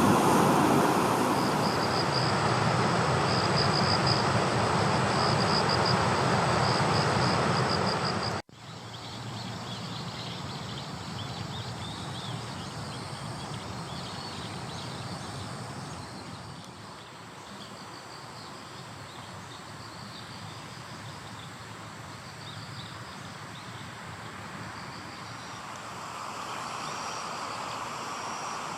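Insects chirping in short repeated high pulses over a steady outdoor noise; the noise is loud for the first third, then drops abruptly at a cut, leaving the insects over a quieter background.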